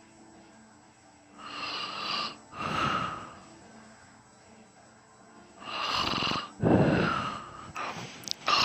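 A sleeping man snoring: noisy breaths come in pairs, one pair about a second and a half in, another about four seconds later, and a third starting near the end.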